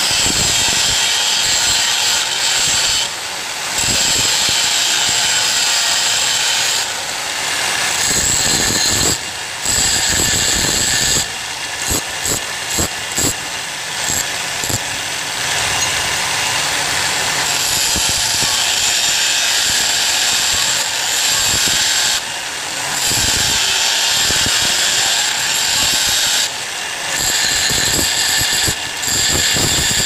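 Motor-driven grinding wheel running with a flat steel strip pressed against it, grinding the shoulders off the strip's sides. The steady, harsh grinding hiss breaks off briefly several times, most often around the middle.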